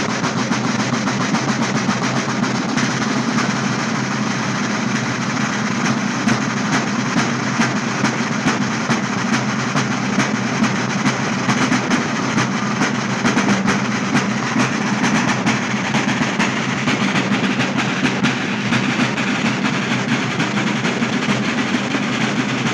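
A group of six Sicilian tamburi, large rope-tensioned side drums, beaten together with sticks in a dense, unbroken rhythm.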